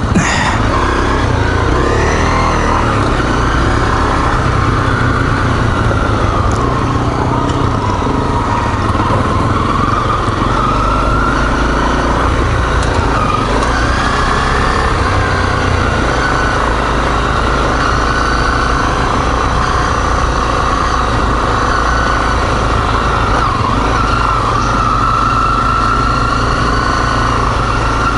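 Four-stroke single-cylinder dual-sport motorcycle engine running steadily while riding a trail, its pitch wavering up and down with the throttle.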